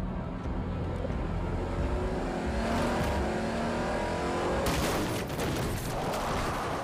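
A Pontiac Aztek's engine revving hard, rising in pitch as the car accelerates. About two-thirds of the way in there is a sudden crash of impacts, followed by the tyres skidding across loose dirt.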